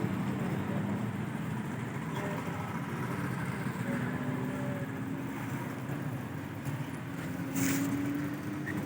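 A motor vehicle's engine running, heard as a steady low hum whose pitch rises slowly in the second half, with a short sharp noise about three-quarters of the way through.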